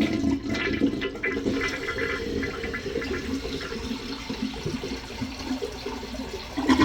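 Toilet flushing: a steady rush of water running through the bowl, louder near the end. This is a test flush of a newly replaced tank flush mechanism.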